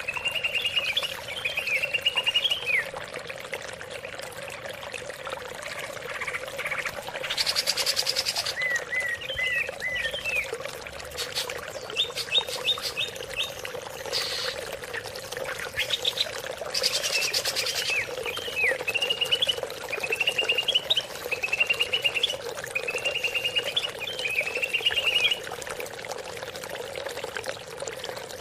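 Leafbird (cucak ijo) singing short, repeated chattering phrases of quick slurred notes, broken twice by a harsh rattling burst, over a steady trickle of running water.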